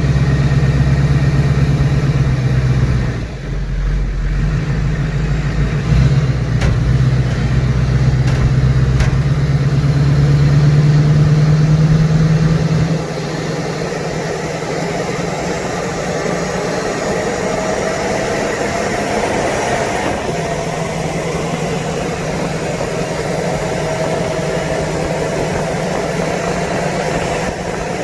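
Duramax V8 turbodiesel running under way, its low engine note climbing for a while before it drops off suddenly, about halfway through, to a quieter steady running sound.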